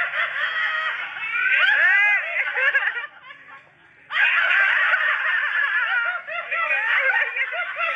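High-pitched laughter in long peals of quick, rising-and-falling 'ha' sounds. It breaks off about three seconds in and starts again a second later.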